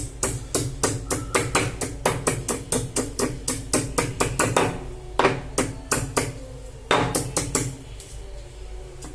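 Pestle pounding ginger to a paste in a mortar: quick repeated knocks about three to four a second, slowing to a few spaced strokes about five seconds in before picking up again.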